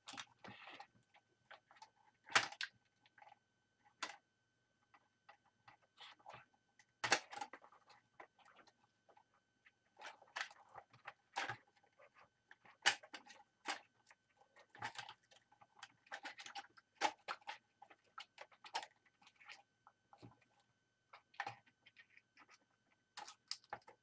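Irregular small clicks, taps and rustles of hands working on a Zebra GK420d label printer's bare plastic chassis and wiring, fitting a new flat ribbon cable. A few sharper plastic clicks stand out among them.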